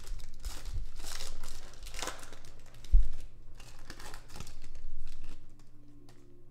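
Foil wrapper of a Topps Chrome Allen & Ginter baseball card pack crinkling and tearing as it is ripped open by hand, with a single thump about three seconds in. The crinkling dies away near the end as the cards come out.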